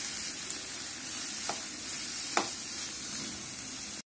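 Prawns sizzling in oil and onion-tomato masala in a nonstick frying pan as a spatula stirs them in, with a steady frying hiss. Two light clicks of the spatula against the pan come about one and a half and two and a half seconds in, the second louder. The sound cuts off suddenly at the very end.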